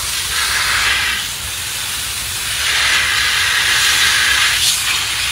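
Garden hose watering wand spraying water onto broccoli and kale plants in a raised bed: a steady hiss that swells louder twice, just after the start and again for about two seconds in the middle.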